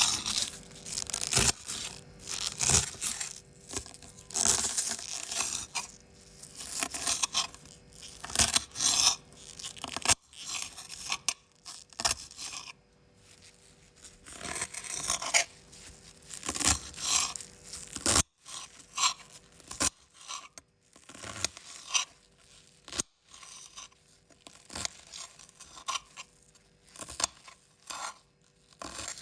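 Knife cutting crisp raw vegetables: irregular crunchy slicing strokes, some short and sharp, others drawn out into a longer tearing rasp, with brief pauses between cuts.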